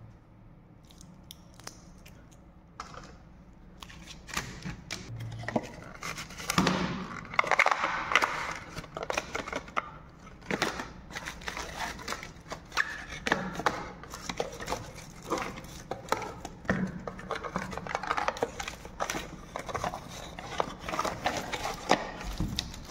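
Paper and cardboard packaging of a smartwatch box being handled and unpacked: irregular rustling and crinkling with small clicks and scrapes. It starts a few seconds in and is loudest at about a third of the way through.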